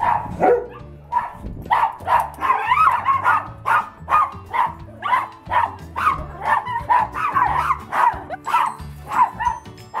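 Small dogs barking excitedly in quick succession, about two to three barks a second, over background music.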